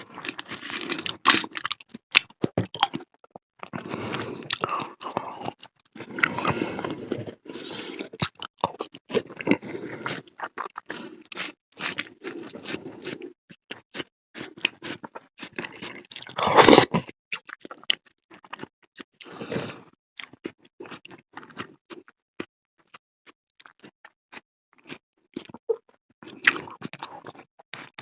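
Close-miked chewing and crunching of a fruit salad with cheese, with spoon scrapes in between and a loudest burst about two-thirds of the way through.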